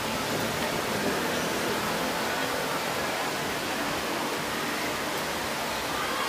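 Steady rushing background noise, even and unbroken, with no distinct sounds standing out.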